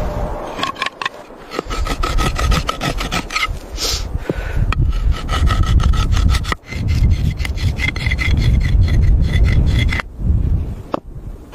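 Repeated rasping, scraping strokes, with brief pauses about a second in, near the middle and near the end.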